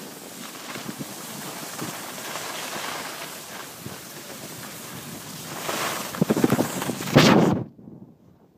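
Wind rushing over the microphone of a camera carried by a moving skier, with the hiss and scrape of skis on packed snow. It gets louder about six seconds in, then cuts off suddenly near the end.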